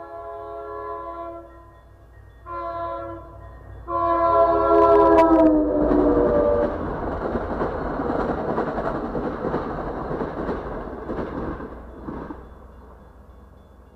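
MBTA commuter train sounding its multi-note horn for the grade crossing: a long blast ending, a short blast, then a long blast that drops in pitch as the locomotive passes. Then the loud rumble and clatter of the bilevel coaches going by, fading near the end.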